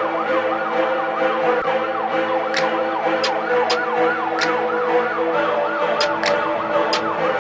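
Siren in a rapid yelp, its pitch rising and falling about three times a second over steady held tones.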